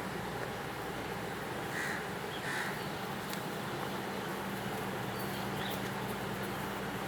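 Two short bird calls about two seconds in, over a steady background of noise with a low hum.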